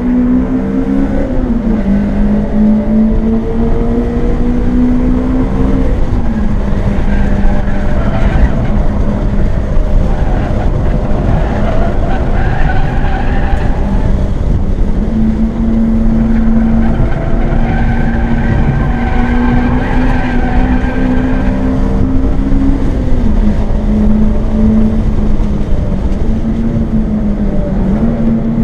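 Acura RSX's K20 four-cylinder engine heard from inside the cabin, held at high revs, its pitch jumping at gear changes about a second in, around six seconds and again around 23 seconds. Tyres squeal at times through the middle.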